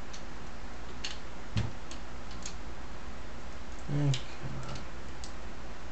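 Scattered light plastic clicks and ticks as a large Transformers Optimus Prime figure's arm joints are worked by hand, over a steady low background hum. A short voiced grunt comes about four seconds in.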